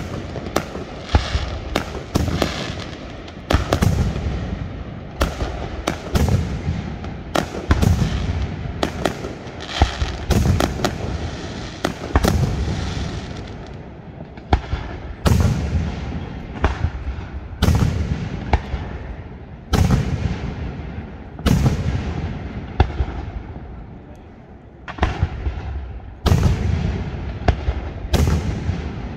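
Aerial firework shells bursting in quick succession, sharp bangs every second or two, each followed by a low rumble. The bursts thin out past the middle and come thick again near the end.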